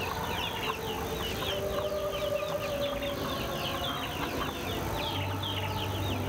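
A chorus of small birds chirping continuously in quick, short falling notes, with chickens clucking underneath. A low hum comes in about five seconds in.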